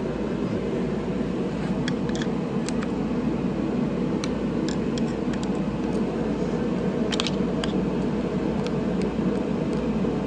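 A steady machine drone, such as a shop fan or blower, with a few light, sharp clicks and clinks scattered through it, most of them in the first seven seconds.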